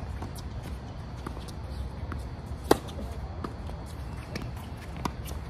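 Tennis ball struck by rackets during a doubles rally: one sharp, loud hit about two and a half seconds in and another about five seconds in, with fainter taps between, over a steady low rumble.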